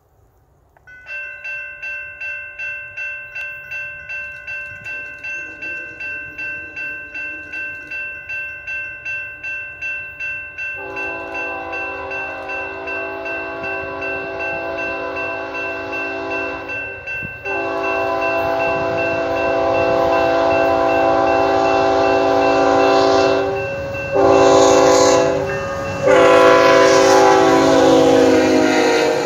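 A grade-crossing bell rings at about three strokes a second. Over it the lead Union Pacific locomotive's air horn sounds the long-long-short-long crossing signal, louder with each blast as the train closes in. Near the end the diesel locomotives pass close by with engine and wheel rumble.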